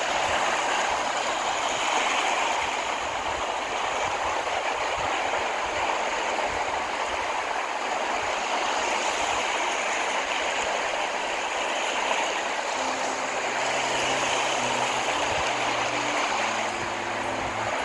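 Steady rushing noise, with faint low humming tones near the start and again in the last few seconds.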